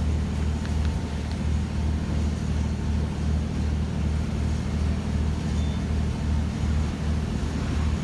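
A machine running with a low, steady drone that pulses about three times a second.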